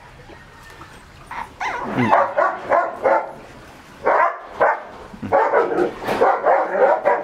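A litter of six-week-old Shih Tzu puppies barking and whining in many short, high, overlapping calls, starting about a second and a half in.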